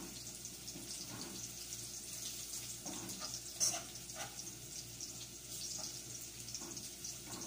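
Chopped garlic sizzling in hot oil in a pot, a steady crackling hiss, while a spoon stirs and scrapes it, with a sharper clink against the pot about three and a half seconds in. The garlic is browning toward a golden colour.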